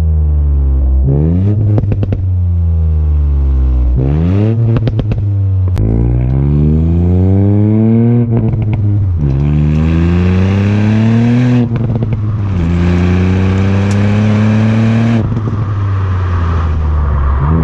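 Ford Fiesta ST Mk8's 1.5-litre turbocharged three-cylinder engine on its stock valved exhaust, accelerating hard up through the gears. The pitch climbs and drops back five times, once at each shift, with short clicks and pops at the lift-offs, then settles to a steadier note near the end.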